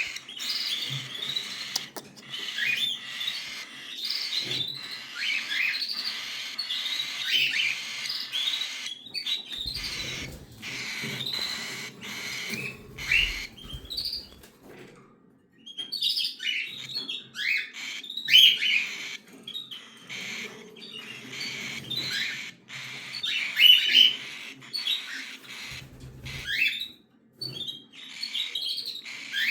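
Cockatiel chicks calling in a dense series of short, high chirps, with a brief quieter pause about halfway through.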